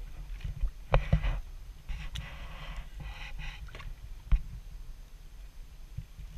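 Low wind rumble on a boat at sea, with a few sharp knocks, the loudest about a second in and again about four seconds in, and a brief hiss of water in the middle.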